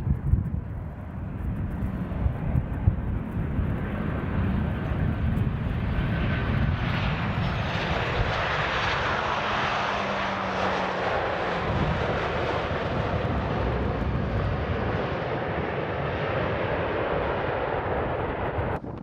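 Jet airliner's engines running as it passes, a loud rushing roar that builds and spreads higher in pitch to a peak about half-way through.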